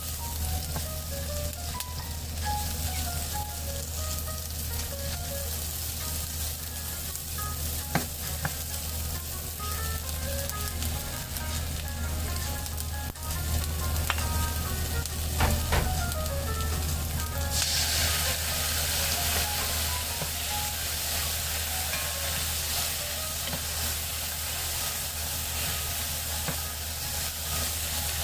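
Green peppers and chikuwa stir-frying in a pan, sizzling steadily, with a few sharp knocks of a utensil on the pan; about two-thirds of the way through, the sizzle turns louder and hissier. Light background music with a melody of short notes plays underneath.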